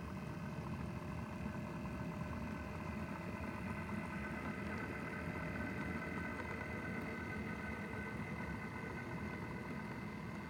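Model Class 57 diesel locomotive running past with its train: a steady diesel-engine drone over a continuous low rumble of wheels on the track.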